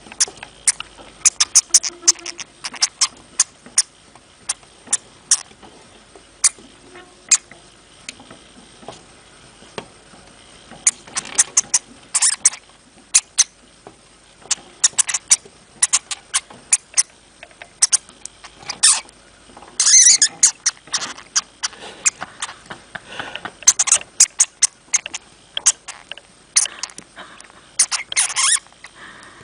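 Hamster making many short, sharp, high-pitched clicks and squeaks in irregular clusters, with busier runs around the middle and near the end.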